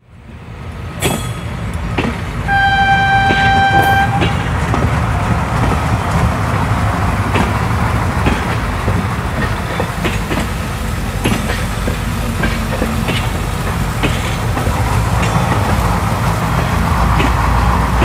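Märklin HO model trains running on metal track: a steady rumble with sharp clicks as the wheels pass rail joints. About two and a half seconds in, a single steady whistle tone sounds for about a second and a half.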